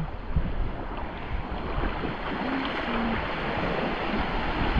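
Sea waves washing with wind buffeting the microphone, swelling louder near the end. A faint voice calls briefly about two and a half seconds in.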